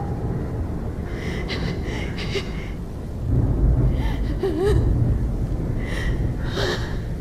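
A woman sobbing, with gasping breaths and short whimpering cries, over a low rumble that grows louder about three seconds in.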